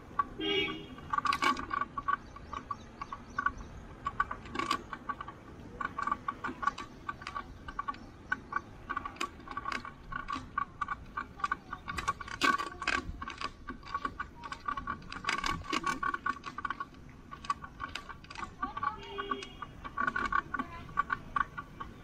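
A bicycle rattling and clicking as it is ridden along a road: a steady jingling rattle with many irregular sharp clicks and knocks.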